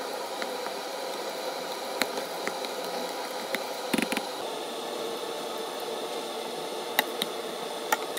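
Boiled potatoes with butter and milk being mashed in a stainless steel pot, soft squishing over a steady hiss, with a few sharp clinks of the masher against the pot.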